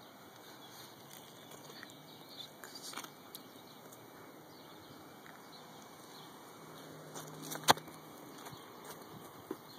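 Faint outdoor background hiss with light clicks from a hand-held camera being handled. One sharp click comes late on and is the loudest sound.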